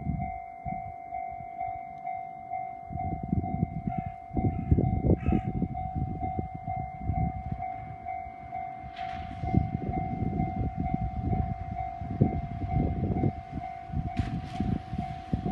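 Japanese level-crossing warning bell ringing steadily with a fast, even pulse, over the low rumble of an approaching local train. A few short horn-like tones sound about four to five seconds in.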